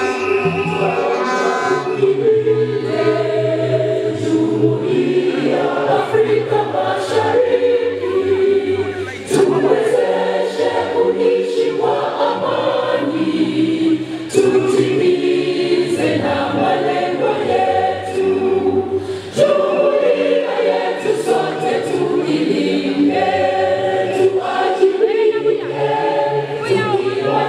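A group of voices singing together as a choir, with sharp percussion strokes running through the song.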